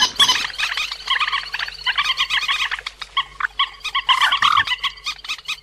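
Recorded calls of the cuốc biển, a rail, played as a trapping lure: rapid chattering notes from several birds overlapping, thinning briefly about three seconds in.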